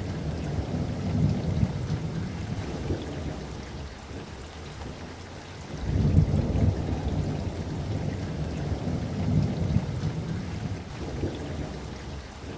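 Thunderstorm: low rolling thunder over steady rain. The rumble eases off about four seconds in and swells again about two seconds later.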